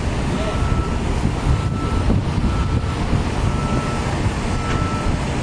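Wind buffeting the microphone in a loud, gusty rumble, with a faint high beep repeating about once a second.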